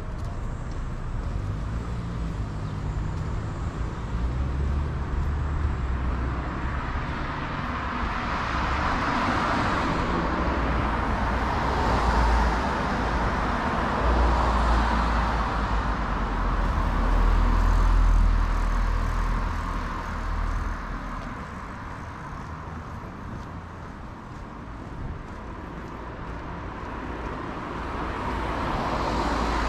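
Street traffic: several cars passing close by, their tyre and engine noise swelling and fading, loudest in the middle, easing off for a few seconds, then another vehicle approaching near the end.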